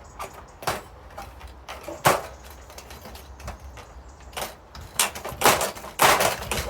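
Telescopic hand rivet gun setting 4.8 mm aluminium pop rivets in a steel raised-bed panel: a series of sharp clicks and snaps as the rivets pull up and their pins break off, loudest about two seconds in and several more near the end.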